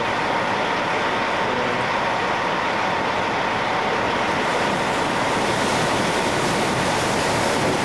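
Steady rushing of water churned between the SS Badger ferry's hull and the concrete dock as the ship berths, with a faint steady tone above it.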